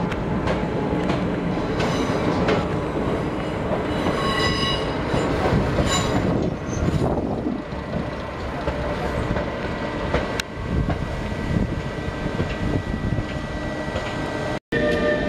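Two WM15A rail motor trolleys running past, their wheels rumbling and clattering on the track, with a brief high squeal about four to six seconds in. Near the end, after a short break in the sound, a steady hum from an EU47 Traxx electric locomotive.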